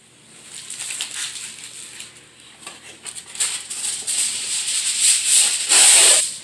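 Aluminium foil crinkling and rustling as it is folded and scrunched around a foil-packet dinner, in irregular bursts that grow louder, with the loudest crumple about six seconds in.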